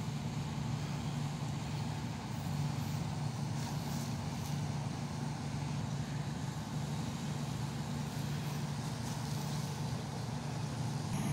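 Steady low mechanical hum, constant in level, with no clear impacts over it.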